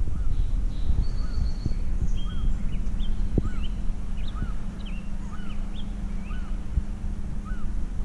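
Wind rumbling on the microphone, with a small bird calling repeatedly through it: short chirps about once a second, with a brief higher whistle about a second in. A faint steady low hum runs under it from about two seconds in.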